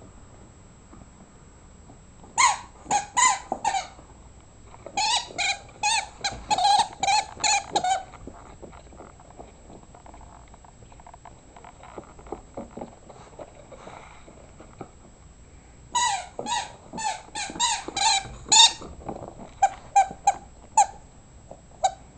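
Rubber chicken dog toy squeaking as an Irish Terrier chews and squeezes it. The squeaks come in quick runs: one a couple of seconds in, a longer run from about five to eight seconds, a quieter stretch of faint chewing sounds, another fast run at about sixteen seconds, then a few spaced squeaks near the end.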